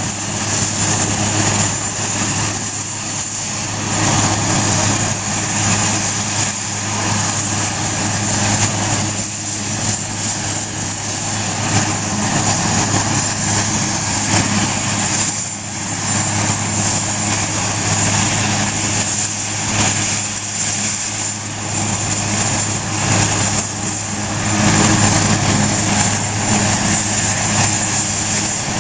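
Bundespolizei Super Puma helicopter running on the ground with its rotor turning, before lift-off: a steady high turbine whine over a low drone.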